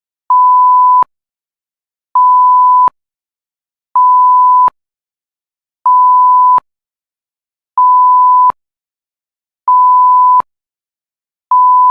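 Censor-style bleep: a steady pure tone lasting under a second, repeated seven times about every two seconds with silence between. Each bleep cuts off with a slight click.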